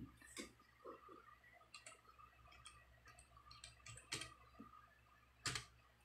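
Near silence with a faint low hum and scattered faint clicks; two sharper clicks stand out about four and five and a half seconds in.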